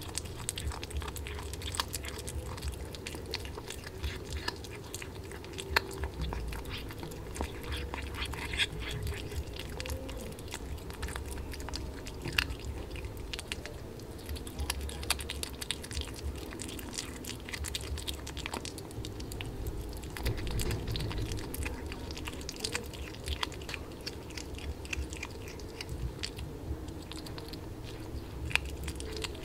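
A kitten chewing and biting raw fish steaks, with many irregular wet smacks and crunchy clicks as it bites through the flesh.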